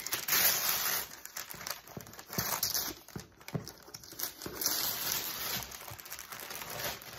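Paper and cardboard packaging rustling and crinkling as a gift box is handled and opened, in irregular bursts of rustle.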